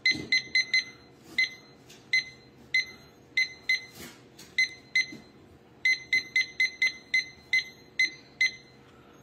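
Key-press beeps from a DecorStar wireless meat thermometer's receiver, one short high beep for each button press as it scrolls through its meat presets. Some come in quick runs of three or four, and the rest are spaced about one every 0.7 s.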